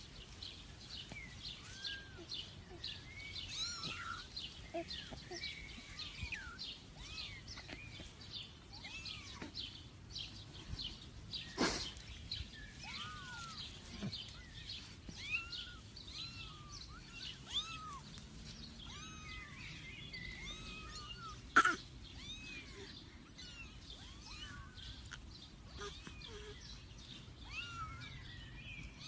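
Several young kittens mewing over and over in short, high, arching mews, with two sharp knocks about twelve and twenty-two seconds in, the second the loudest sound.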